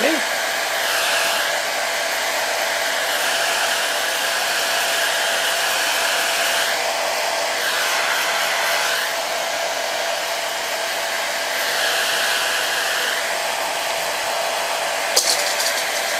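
Handheld hair dryer blowing steadily, its tone sweeping and swelling as it is moved about. A sharp click sounds near the end.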